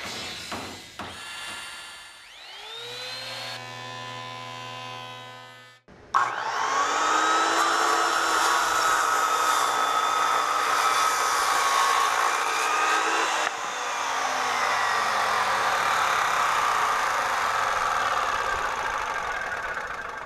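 Skilsaw Sawsquatch 10-1/4-inch worm drive circular saw spinning up with a rising whine and running free. About six seconds in it gives way abruptly to a much louder, denser sound of the saw cutting through lumber under load for about fourteen seconds, its pitch sagging and recovering as it works.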